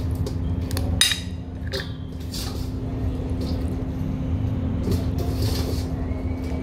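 Hands moving wet pieces of raw seafood on a ceramic plate over a steel pot, with a sharp clink about a second in and a few softer clicks after, over a steady low hum.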